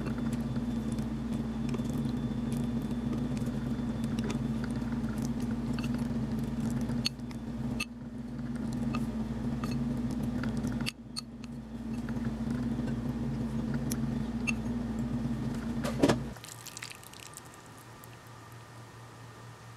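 Steady low electrical hum of a kitchen appliance, with light clicks and scrapes of wooden chopsticks against ceramic bowls as food is moved from one bowl to another. The hum stops suddenly after a louder click about sixteen seconds in, leaving faint clinks of chopsticks and a spoon stirring noodles in a bowl.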